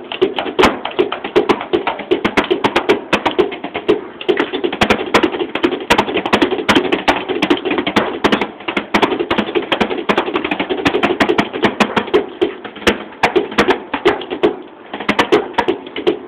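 Sticks striking the pads and cymbal pads of a Roland electronic drum kit, heard as the kit's own dry acoustic taps and thuds rather than its synthesized drum sounds: a fast, busy drum pattern that thins out near the end.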